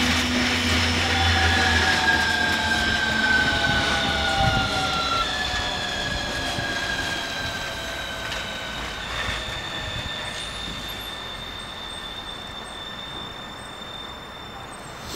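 Copenhagen Metro driverless train passing close by and moving away: running noise with several high whining tones that slowly fall in pitch, fading steadily.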